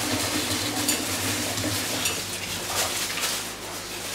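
Home kitchen cooking sounds: a steady sizzling hiss of food in a pan, with a few clinks of utensils against pots and dishes.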